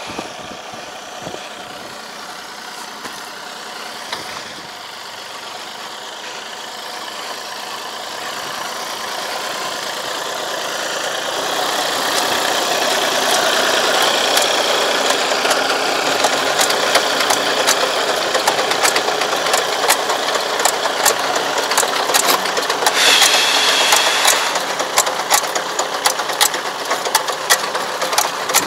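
Diesel engine of a semi-crawler tractor pulling a soil fumigant injector, getting louder as it comes up and passes close, with rapid regular clicking from the rig over the second half and a brief brighter rasp about three-quarters through.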